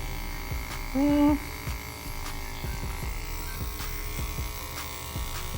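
Cordless hair clipper running steadily with a continuous motor buzz. About a second in there is one short, louder low-pitched hum.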